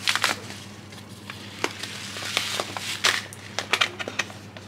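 Scattered sharp clicks and crinkles of bags and packets being handled, over a steady low electrical hum.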